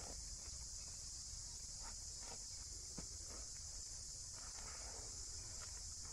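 Insects droning steadily at a high pitch, with faint, irregular crunching cuts of a large knife slicing through a raw jackfruit's rind and flesh.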